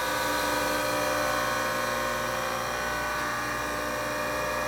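Harig 6″ x 12″ hand-feed surface grinder's spindle running steadily, a smooth hum with a high whine. It is a decent-sounding spindle in good condition.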